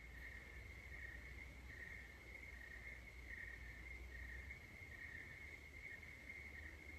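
Faint, steady insect trill, like crickets, with a low hum underneath.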